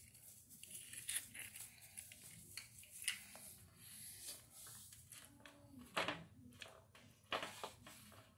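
Slime being squeezed and poked by hand, making faint, irregular clicks and squelches. The loudest comes about six seconds in.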